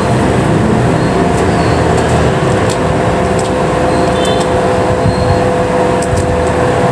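A steady machine hum with a constant pitched tone, like a running fan or motor, and scattered light clicks and taps of utensils working in a ceramic bowl.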